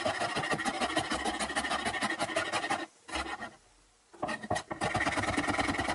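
Chef's knife quickly slicing red chili peppers on a plastic cutting board: a fast run of blade taps against the board, broken by a pause of about a second midway.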